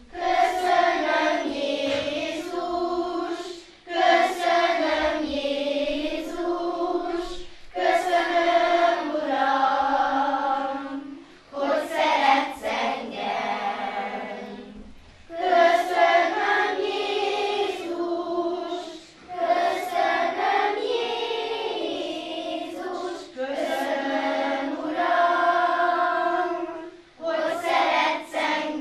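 Children's choir singing. The singing starts right at the beginning and runs in phrases of about four seconds, with short breaks for breath between them.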